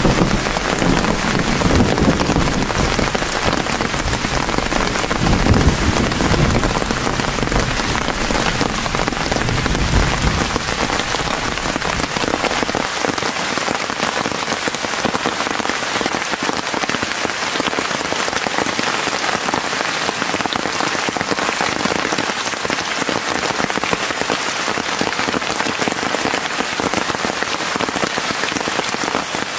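Steady rain falling, with a low thunder rumble under it through roughly the first twelve seconds, after which only the rain continues.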